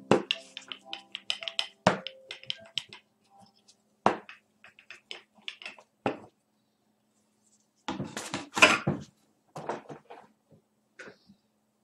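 Hands handling collage materials (paper, board and a wooden roller) on a wooden desk: irregular taps, knocks and paper handling, with a longer burst of scraping and rustling about eight to nine seconds in.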